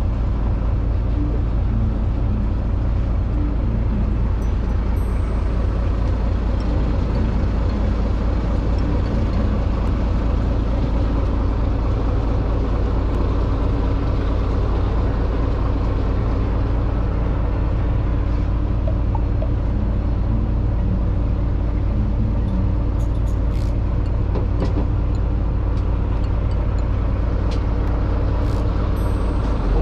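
Fishing boat's engine running steadily, a constant low rumble.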